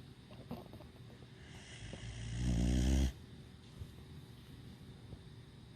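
Mexican Hairless dog (Xoloitzcuintli) snoring in its sleep: one long snore that swells over about a second and a half and cuts off sharply near the middle.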